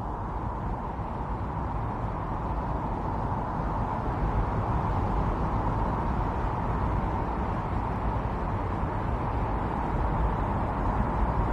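Strong winter storm wind blowing steadily, a constant rushing noise with a slight howl in its middle range, growing a little louder about four seconds in.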